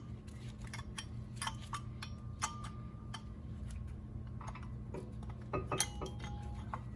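Light metallic clicks, taps and clinks as a brake pad's spring clip is worked into the caliper piston. The clicks come irregularly, a quick cluster a little after five seconds in, over a steady low hum.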